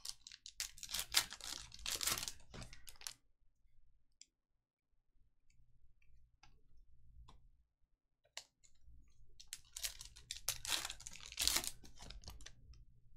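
Trading-card pack wrappers being torn open and crinkled, in two spells about a second in and again near ten seconds in, with light clicks of cards being handled in between.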